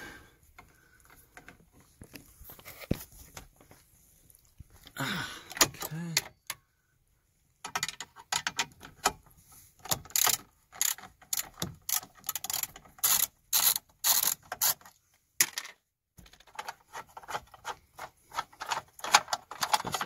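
Socket ratchet wrench clicking in quick repeated strokes, about two to three a second, as a seat belt mounting bolt is backed out.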